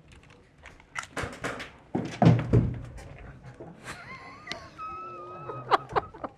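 Airsoft gunfire: a quick string of sharp cracks, followed by a couple of heavier thuds. Midway through comes a high, slightly wavering held tone.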